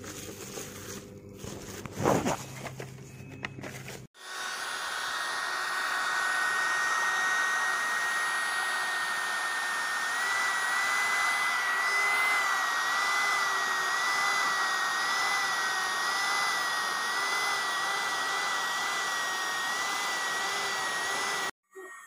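Clicks and crackling for about four seconds, then a handheld mini vacuum cleaner running with a steady high whine. Its top tone starts to waver up and down about ten seconds in, and it cuts off abruptly just before the end.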